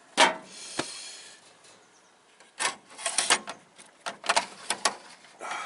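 A metal tool chest drawer sliding open with a short scraping rush, then a run of sharp clicks and clatters as the hand tools inside are moved about.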